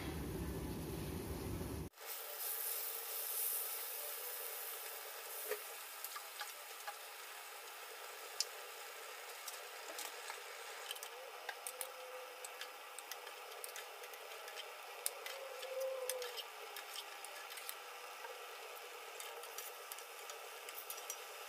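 Hot oil sizzling and crackling steadily around slices of tempe frying in an aluminium wok, with a metal spatula moving them near the end.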